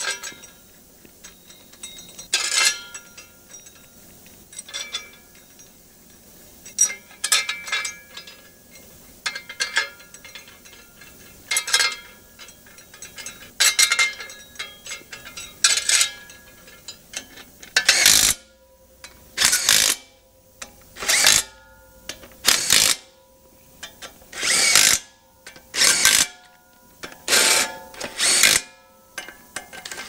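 Ratchet clicking in short bursts as the flex plate bolts on a DT-466E crankshaft are run down. The bursts come at scattered moments at first, then regularly about every second and a half from about two-thirds of the way in.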